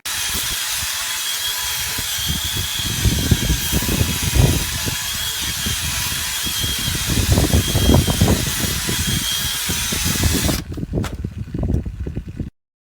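BLACK+DECKER 18V cordless combi drill running continuously with a steady motor whine and irregular low knocks. The motor stops about ten and a half seconds in, a few clunks follow, and then the sound cuts off abruptly.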